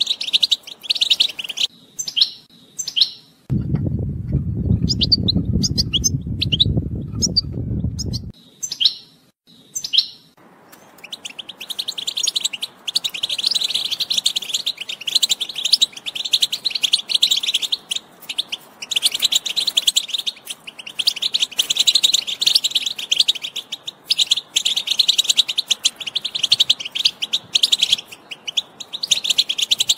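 European goldfinch song: fast, jingling twitters and trills in long unbroken bouts. There are a few short separate calls at the start, and full song from about ten seconds in. From about three and a half to eight seconds in, a low rumbling noise sits under the calls.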